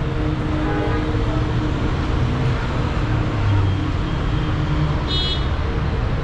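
Steady street traffic rumble on a city street, with a brief high-pitched beep about five seconds in.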